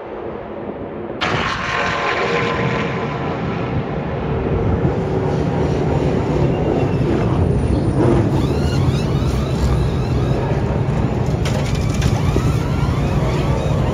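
NASCAR race trucks' V8 engines running at speed on track, a loud steady drone with engine notes rising and falling as trucks pass. The sound jumps abruptly louder and brighter about a second in.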